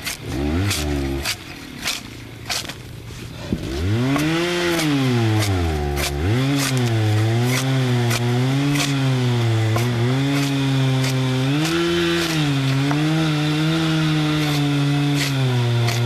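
Two-stroke chainsaw revving up sharply about four seconds in, then running at high speed with its pitch rising and falling as it works against the wood under load.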